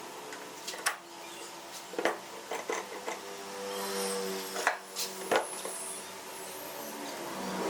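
Wooden pieces being handled in the workshop, giving a handful of sharp knocks and taps over a faint steady hum.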